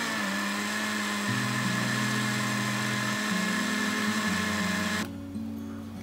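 Countertop blender running at a steady speed, puréeing a liquid cake batter of eggs, sugar, oil, sweetcorn and coconut milk, then switched off about five seconds in.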